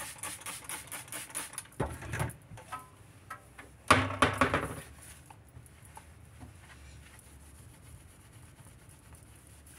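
Kitchen counter being wiped down with a cloth and a spray bottle: a run of small clicks and rubbing, a louder knock of handling noise about four seconds in, then quiet faint wiping.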